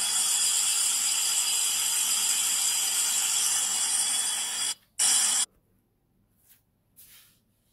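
Metal lathe boring out a bronze bushing: a steady high cutting hiss with faint ringing tones. It breaks off briefly just before five seconds in, returns for half a second, then stops suddenly, leaving near silence with a few faint clicks.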